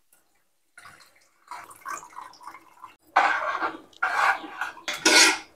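Tamarind water poured into a kadai over spice powders, then a ladle stirring the watery curry base, sloshing in several louder strokes in the second half.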